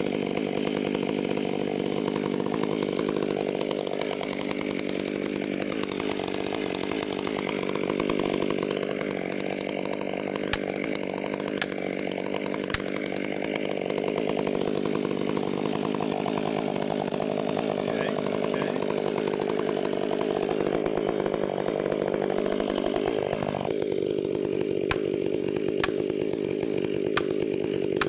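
Chainsaw running steadily under load, cutting through wood, with its engine pitch dipping and recovering a few times.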